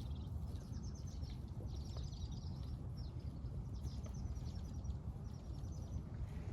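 Songbirds singing, short rapid trills repeated about every second, over a steady low rumble.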